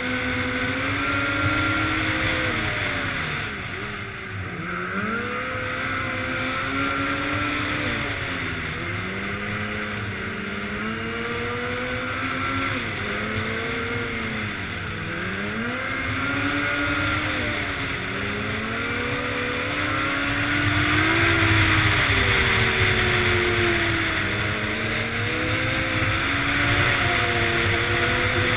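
Snowmobile engine running hard at speed, its pitch rising and falling over and over as the throttle is opened and eased off through the trail's bends, with wind rushing over the helmet microphone.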